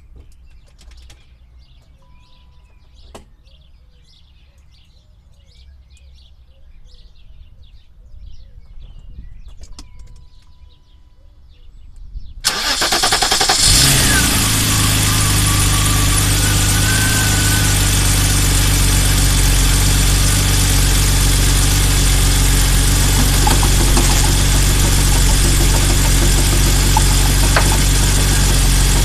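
BMW E34 M5 straight-six engine started about twelve seconds in, catching after a brief crank and settling into a steady idle. Before it, quiet with faint bird chirps and two short beeps.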